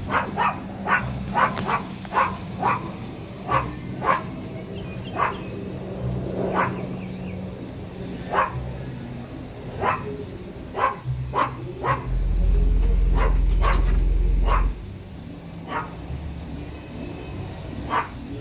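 A dog barks repeatedly in short, irregular barks. About twelve seconds in, a car subwoofer system plays a loud, steady deep bass tone for under three seconds, a burp from a pair of Soundstream X3.12 subwoofers, then cuts off suddenly.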